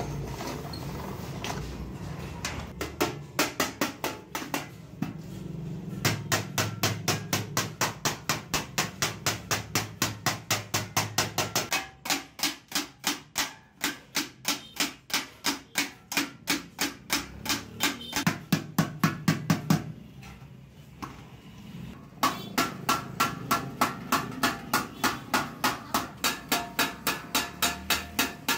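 Hammer rapidly beating a sheet-metal bucket body over a stake, about four ringing metal blows a second, with a short pause about two-thirds of the way through.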